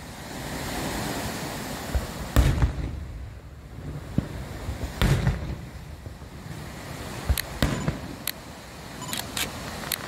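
Aerial firework shells launching and bursting in a string of sharp bangs. The heaviest come about two and a half and five seconds in, followed by a quicker run of bangs in the last few seconds.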